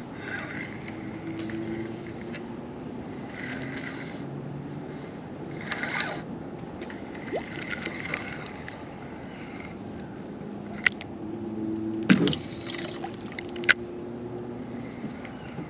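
Kayak paddle strokes splashing and sloshing in the water about every two seconds, with three sharp knocks in the second half.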